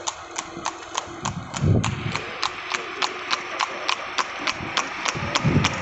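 A horse's hooves clip-clopping on a tarmac road as it trots pulling a cart, in quick even beats about four to five a second. There is one low thud about two seconds in.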